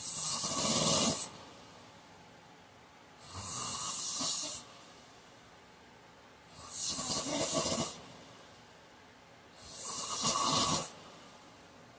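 A heavyset man snoring in his sleep: four loud snores in an even rhythm, each just over a second long and about three seconds apart, with quiet breathing in between.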